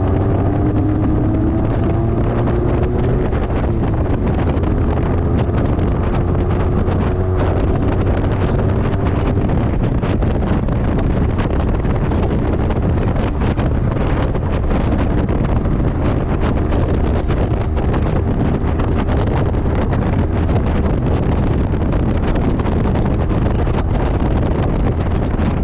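Motorcycle with a Yoshimura Slip-On Oval Cyclone exhaust muffler, running on the road under heavy wind noise on the microphone. The exhaust note climbs slowly in pitch over the first several seconds, then is mostly masked by the steady wind rush.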